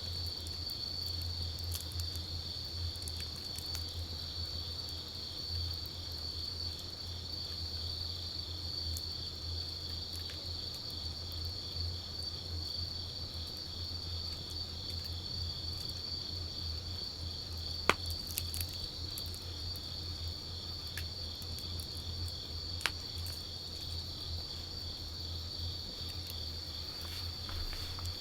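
Wood campfire burning with light crackling and a couple of sharp pops, about two-thirds of the way in and again a few seconds later, over steady high-pitched insect chirring.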